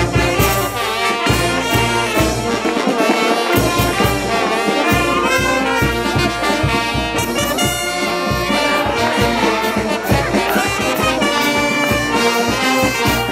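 Brass band playing: trumpets, trombones, saxophones and sousaphones together over a steady beat.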